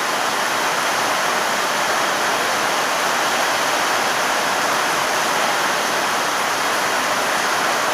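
Heavy rain pouring down in a storm: a loud, steady hiss of falling water.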